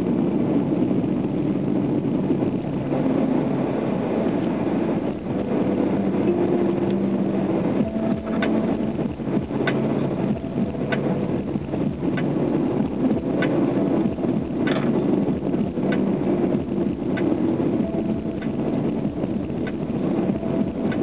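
Subaru SVX's 3.3-litre flat-six running at a steady cruise with tyre and road noise, heard from inside the cabin. A faint light tick repeats a little more than once a second from about eight seconds in.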